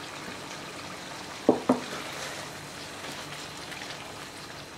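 Chicken and sea cucumber in a reduced soy-based sauce simmering in a pan over medium heat: a steady, soft bubbling sizzle. About a second and a half in come two quick knocks, the loudest sounds here.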